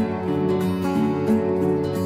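Background music: a gently strummed acoustic guitar with a steady rhythm.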